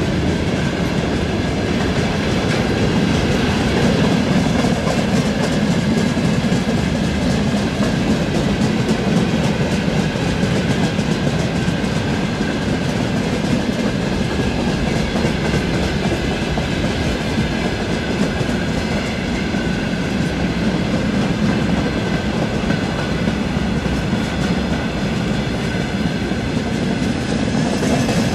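Wagons of a long mixed freight train rolling past: a steady, loud rumble with a fast, continuous clatter of wheels on the rails.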